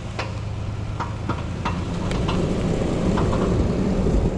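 Vehicle engine and road rumble building steadily as it pulls away, with several sharp knocks and clicks in the first couple of seconds.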